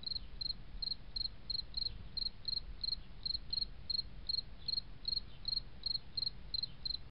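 Cricket chirping in an even rhythm, about three chirps a second, over a faint low rumble.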